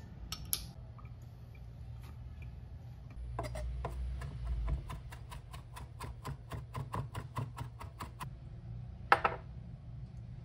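Chef's knife finely chopping parsley on a plastic cutting board: a quick, even run of taps, about five a second, for several seconds, followed by a single louder knock near the end. A few light clicks at the start come from a knife scraping garlic off a garlic press.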